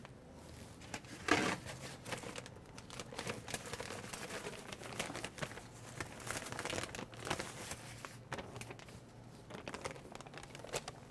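Plastic vacuum-sealing bag crinkling and rustling as it is handled with gloved hands, in irregular bursts with a louder crinkle about a second in.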